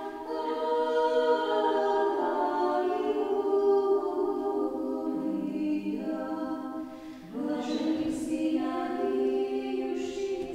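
Women's voices singing unaccompanied Byzantine-rite chant, with held notes moving in steps and a short break for breath a little past the middle.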